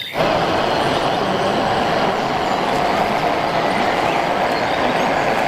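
Steady rushing, splashing water as a muddy toy vehicle is washed clean, with an even level throughout.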